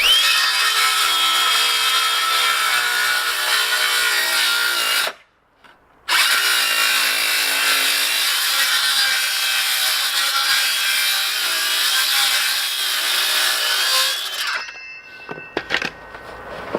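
Makita cordless power tool running under load in larch wood, in two long runs with a sudden stop of about a second, five seconds in. A few clicks follow the second run near the end.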